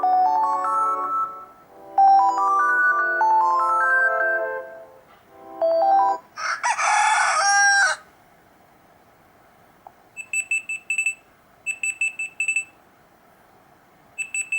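Built-in phone ringtones of a Black Fox B5 played one after another: a bright melody of quick rising note runs that stops about six seconds in, then a recorded rooster crow lasting about two seconds, then, after a short pause, a high electronic beeping in short bursts of rapid beeps.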